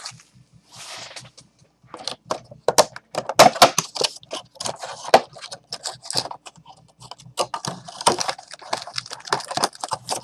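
Packaging of a sealed box of trading cards being torn open and handled: rapid crinkling, rustling and clicking, sparse for the first two seconds and then nearly continuous.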